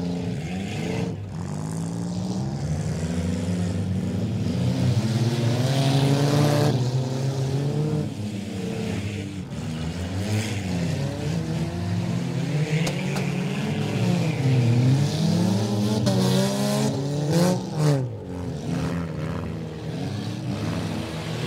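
Several front-wheel-drive figure-8 race cars running on a dirt track, engines revving up and down and overlapping as they accelerate and lift. A few brief knocks come near the end.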